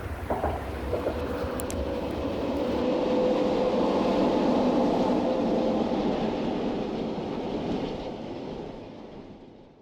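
A steady rumbling noise with a faint steady tone in it, swelling to its loudest in the middle and fading away near the end.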